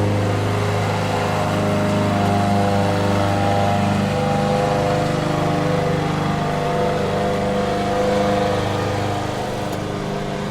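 Petrol lawn mower engine running steadily, its pitch shifting slightly as it works.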